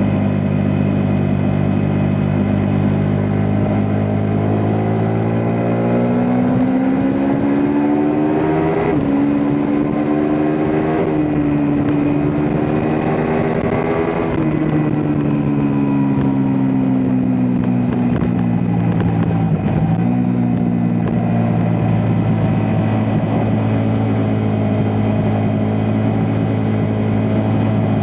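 Ducati Multistrada V4 S's V4 engine pulling up through the gears: the pitch climbs for several seconds with short breaks at the upshifts, holds, then falls away as the throttle is eased, settling into steady running.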